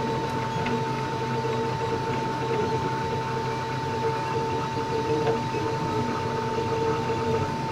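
Wanhao Duplicator 4X 3D printer running a print: its stepper motors whine in tones that come and go as the build plate and print head move, over a steady high-pitched tone and a low hum.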